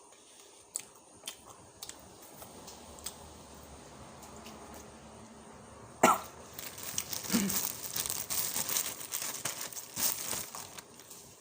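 Close-miked mukbang eating sounds: small wet mouth clicks, then a sudden cough about six seconds in. Several seconds of dense, crackly crunching and crinkling follow.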